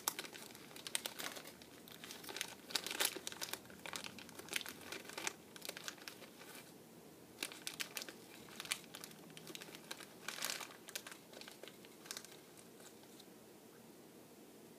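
Candy packaging crinkled and rustled by hand while the next Mike and Ike candy is picked out, in irregular bursts of crackling that thin out near the end.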